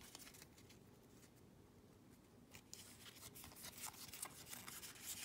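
Near silence: room tone, with faint light rustles and clicks in the second half.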